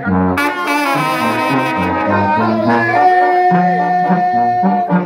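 Live banda brass band playing an instrumental passage: trombones and trumpets over a bouncing sousaphone bass line and drums. A cymbal crash comes about half a second in, and a long high note is held through the second half.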